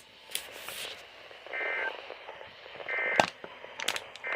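NOAA Weather Radio sending the EAS end-of-message signal after a warning: three short two-tone digital data bursts a little over a second apart, the third running on past the end. Sharp static crackles and clicks from the radio reception come between them, loudest about three seconds in.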